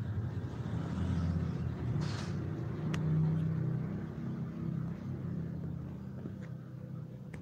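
Mother cat purring, a low steady rumble with short breaks between breaths, while her kittens nurse. A brief rustle comes about two seconds in and a small click just after.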